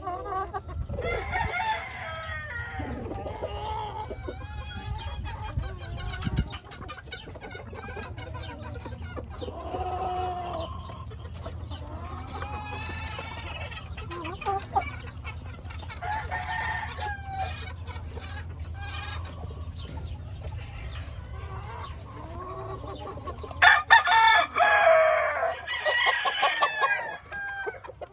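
A yard of gamecock roosters and hens calling: repeated clucks and crowing scattered throughout, with the loudest crowing from about 23 to 27 seconds in. A steady low hum runs underneath and fades out a few seconds before the end.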